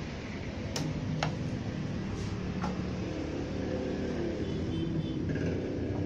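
A few sharp clicks and taps in the first three seconds, from a screwdriver handled against the plastic back cover of an LED TV, over a steady low background rumble.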